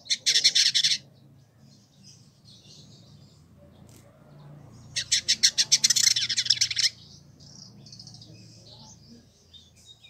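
Male village indigobird (Vidua chalybeata) singing: a loud burst of rapid repeated high notes at the start and another about five seconds in lasting about two seconds, with soft twittering between them.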